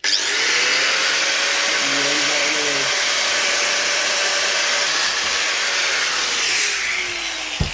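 Angle grinder with a cutting disc starting abruptly and running at a steady high pitch while cutting through a length of roof drip trim; near the end its pitch falls as it winds down.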